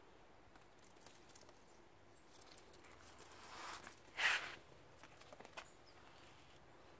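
Kitten's paws scuffling and pattering on concrete paving as it pounces at a feather toy, with light clicks and one brief louder scrape a little past the middle.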